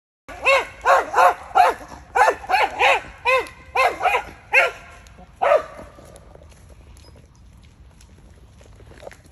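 A dog barking in a rapid series, about a dozen sharp barks over some five seconds, then stopping.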